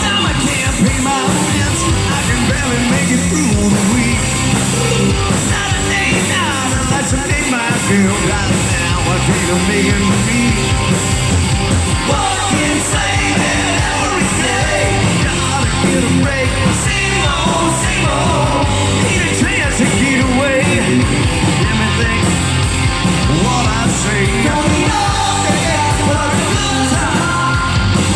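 A live rock band playing loud rock music at full volume, with no break.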